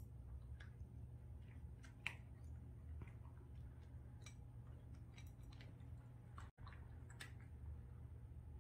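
Cat eating dry kibble from a glass bowl: faint, irregular crunches and small clicks over a low steady hum.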